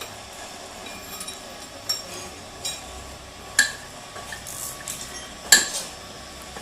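Metal tools and parts clinking and knocking as they are handled: a handful of irregular sharp metallic taps with a short ring, the loudest about three and a half and five and a half seconds in.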